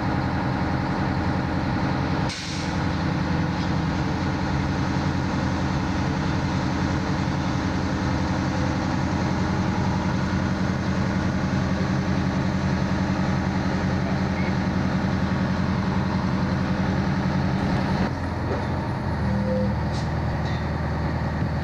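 Fire engine's diesel engine running steadily close by, with a short sharp hiss about two seconds in. Near the end the engine note changes as the truck moves.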